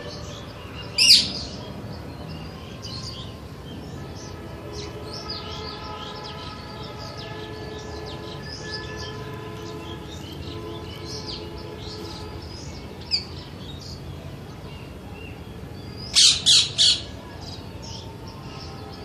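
Parakeets calling: one loud, shrill screech about a second in and three quick screeches near the end, over a steady scatter of short bird chirps.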